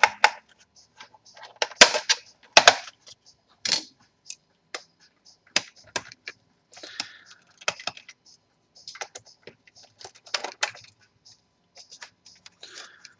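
Irregular clicks, taps and short scrapes of a laptop's plastic back covers, battery and screws being handled and taken off.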